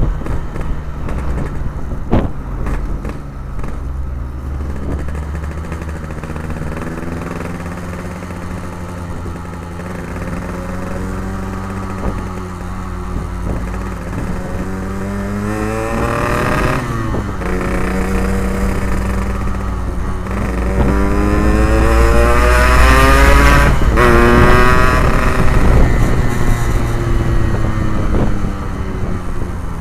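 Yamaha RX-King two-stroke motorcycle with an Abbox C20 aftermarket exhaust, riding and accelerating. The engine note climbs in pitch, drops sharply at each gear change (twice, about halfway and again near the end) and then climbs again. It is loudest in the second half.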